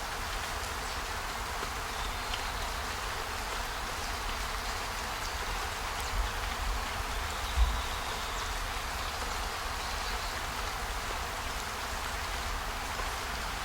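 Steady storm ambience: an even hiss over a low rumble, with two dull thumps about six and seven and a half seconds in.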